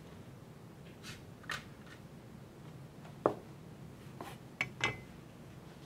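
Light kitchen handling sounds of utensils and a plate while a dish is garnished: two soft scrapes about a second in, a sharp tap about three seconds in, and a few lighter clicks near the end.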